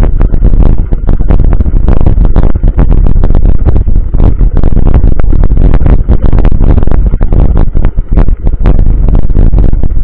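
Mountain bike rolling over a loose gravel dirt road, heard as a constant loud rumble with a dense run of irregular knocks and rattles: the jolting of the ride and wind on the action camera's microphone, overloading it.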